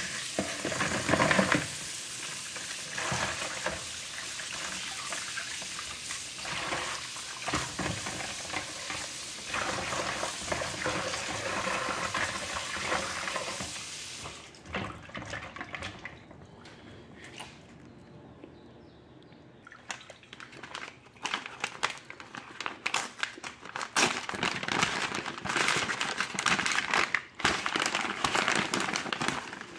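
Kitchen tap running into a plastic bowl of crab legs in a stainless steel sink while hands rinse them; the water stops about fourteen seconds in. From about twenty seconds in, paper and plastic wrapping crinkles as it is pulled open.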